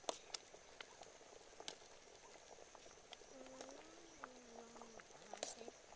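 A metal spoon stirring thick pumpkin porridge in a metal pot, faint, with scattered light clinks and scrapes against the pot. A faint voice sounds briefly around the middle.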